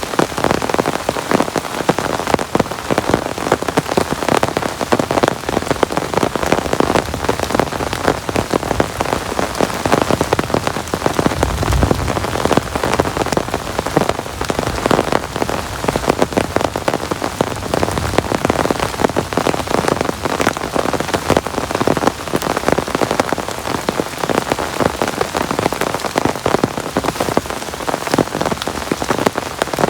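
Heavy rain falling, a dense continuous patter of drops striking a surface close to the microphone, with a brief low rumble about twelve seconds in.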